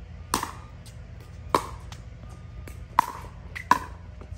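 Pickleball rally: the plastic ball struck by paddles and bouncing on the hard court, four sharp pops at uneven spacing.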